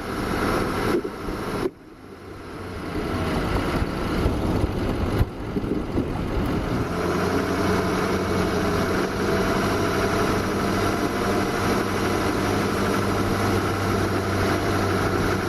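Car engine running at idle, a steady low hum, with a few knocks in the first few seconds.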